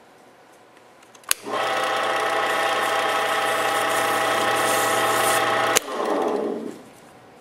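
Wood lathe switched on with a click, its motor running steadily with a hum for about four seconds, then switched off with another click and winding down.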